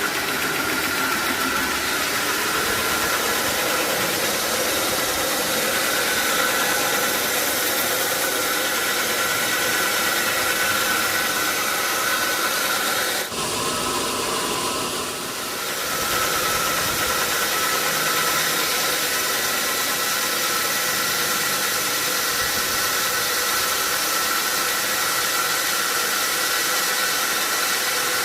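Sawmill machinery running: a steady, loud mechanical noise with a high whine, dropping back briefly about thirteen seconds in before carrying on.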